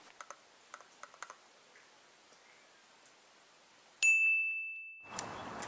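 A single bright bell-like ding about four seconds in, which rings and fades for about a second before cutting off sharply. Before it there is near quiet with a few faint ticks. Near the end a steady outdoor background starts.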